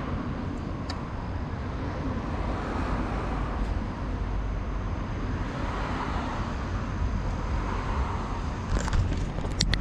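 Steady low rumble of wind buffeting an action camera's microphone outdoors, swelling and easing a little, with a few sharp clicks near the end.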